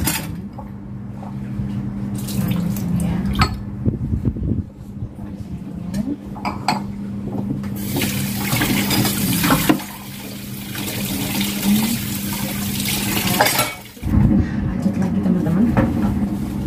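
Washing up at a kitchen sink: metal utensils, a sieve and a stainless steel saucepan clink against each other and the sink, and the tap runs hard for about six seconds in the middle. A steady low hum lies under it all.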